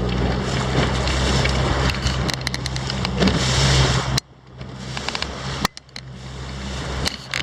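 Outboard motor of a Rib Grand S470 inflatable boat running steadily under wind and water noise as it crosses waves, with sharp knocks of the hull hitting the waves. The sound drops out suddenly about four seconds in and again near six seconds.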